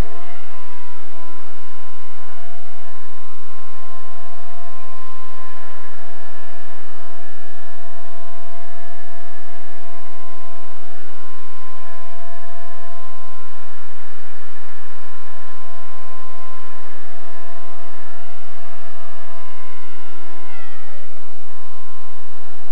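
Blade 130X electric micro RC helicopter in flight: a steady high whine from its motor and rotor blades, dipping sharply in pitch and coming back up near the end.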